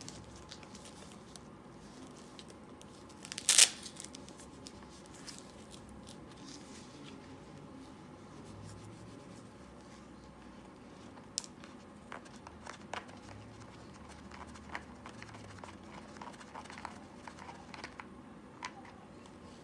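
Handling noise from a Sony Walkman's soft vinyl carrying case being opened and the cassette player slid out: scattered rubs, scrapes and small clicks, with one short loud burst about three and a half seconds in.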